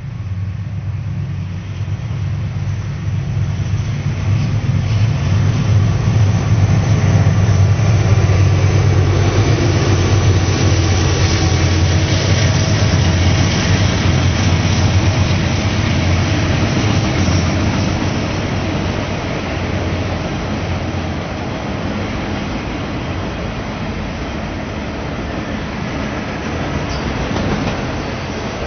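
Norfolk Southern freight train passing close by: the diesel locomotive engines' low drone swells as they approach and go by, loudest about a third of the way in. It then gives way to the steady rumble and clatter of autorack cars rolling past on the rails.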